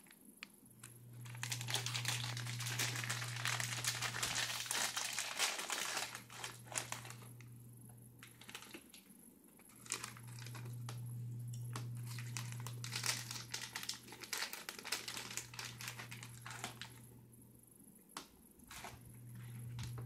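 Crinkling of a plastic snack bag of Chippy barbecue corn chips being opened and handled, in two long bouts with scattered sharp crackles between, under a low hum that cuts in and out.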